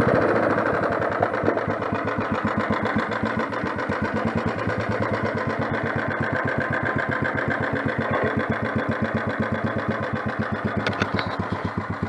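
Four-stroke motorized bicycle engine idling with a steady, even beat.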